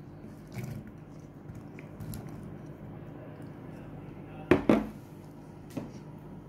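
Cut ash gourd pieces being dropped into a pot, making a few scattered knocks. The two loudest knocks come close together about two-thirds of the way through.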